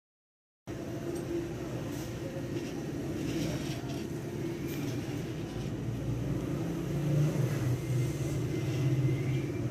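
Steady low mechanical hum with a noisy rumble, starting abruptly about a second in and growing a little louder near the end.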